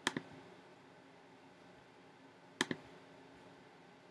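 Two sharp clicks of a computer's pointer button, each a quick press-and-release double tick. One comes right at the start and the other about two and a half seconds in, with faint room tone between.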